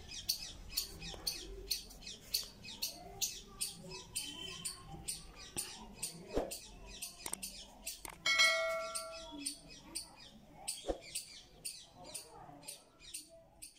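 A squirrel's high-pitched chirps, repeating steadily about three times a second. A little past the middle comes one louder, longer call from another animal.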